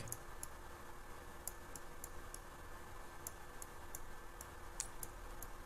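Faint, irregular clicking of a computer mouse and keyboard, about a dozen sharp clicks, over a low steady room hum.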